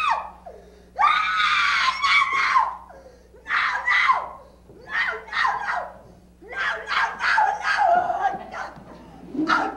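A person screaming: one long, high-pitched scream held for nearly two seconds, then a run of shorter screams and shrieks broken by brief pauses.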